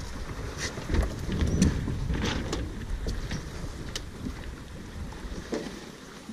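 Wind buffeting the microphone and water rushing past the hull of a J/111 racing sailboat under way, with a few short clicks and knocks from on deck. The low wind rumble eases near the end.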